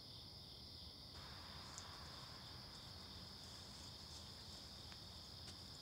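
Faint, steady trilling of crickets.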